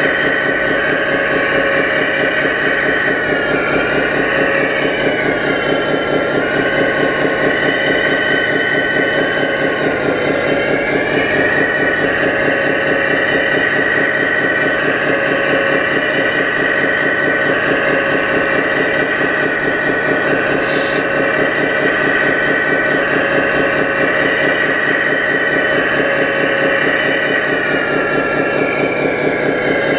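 Scale RC hydraulic excavator working: a steady high whine from its hydraulic pump that sags in pitch a few seconds in and again near the end as the arm moves under load, over a constant, evenly pulsing engine-like drone.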